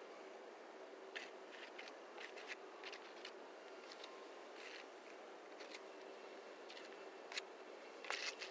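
A snow shovel scraping snow off pavement in a dozen or so short, sharp strokes, the loudest near the end, over a steady background rush.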